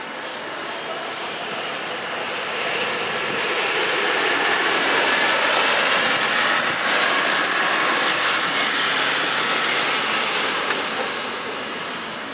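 Cityrail Endeavour diesel railcar set passing, its engine and wheel noise swelling over the first few seconds, holding loud for about six seconds, then fading away near the end.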